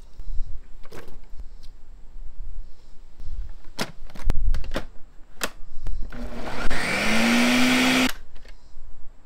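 Countertop blender: a few sharp plastic clicks and knocks as the lid and jar are fitted onto the base, then about six seconds in the motor runs for about two seconds, rising in pitch as it spins up, chopping chunks of mango, carrot and onion, and cuts off suddenly.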